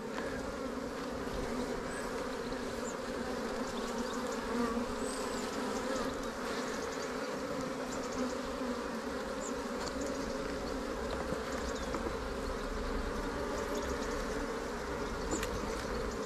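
Honeybees of an open hive buzzing: a steady, even hum of many bees.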